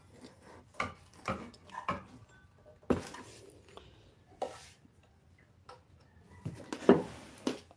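Handling noise from a solar grid-tie inverter's plastic casing and aluminium heat-sink fins being lifted and turned over by hand: irregular knocks and clatters, the sharpest near the end.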